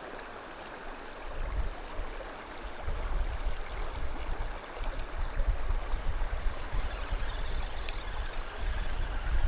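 River water rushing steadily, with a low rumble that swells and fades underneath.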